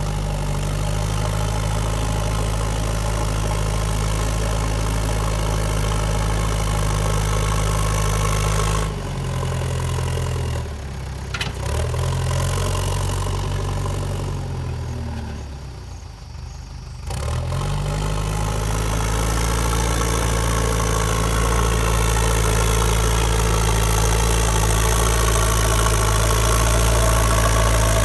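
JCB 3DX backhoe loader's diesel engine running at steady revs, dropping off about nine seconds in, sagging lowest around sixteen seconds, then revving back up and holding.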